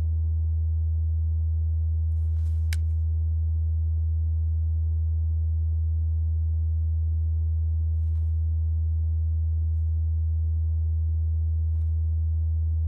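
A steady, deep low-pitched tone that holds without change, a low drone of the kind used in a horror score. A few faint clicks and rustles sit under it, the sharpest about two and a half seconds in.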